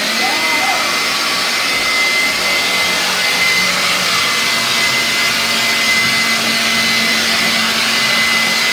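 Water running hard into a bathtub from the tap: a loud, steady rush with a thin high whistle through it.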